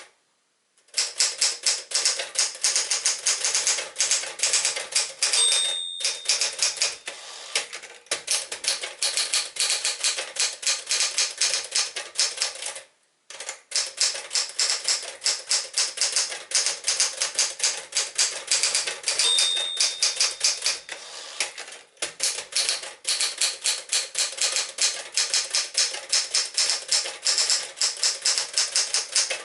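1965 Smith-Corona Sterling portable manual typewriter being typed on: a fast, continuous run of key and typebar strikes with a few short breaks. Twice a brief high ring sounds, the margin bell near the end of a line.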